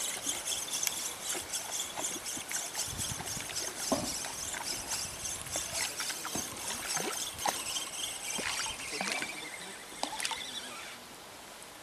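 Shimano Aspire 4000 spinning reel being cranked steadily, winding the braided line and 40 g feeder weight back in after a long test cast. The winding stops near the end as the weight reaches the bank.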